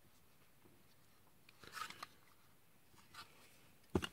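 Small hard-plastic toy robot parts being handled: a soft rustle about halfway through, then a few sharp plastic clicks near the end as a small weapon piece is picked up.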